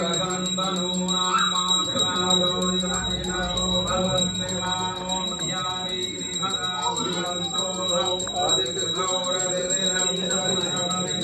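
Hindu devotional music with a held drone and a shifting melodic line, under a bell ringing rapidly and without a break.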